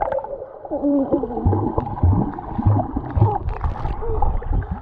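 Pool water heard underwater: muffled gurgling and bubbling stirred up by a swimming child, with wavering tones and a run of low thumps about twice a second in the middle.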